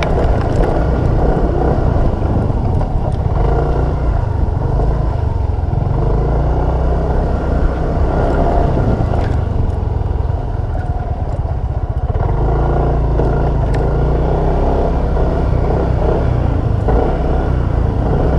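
Small motorcycle engine running steadily while being ridden, loud, with most of its sound low-pitched.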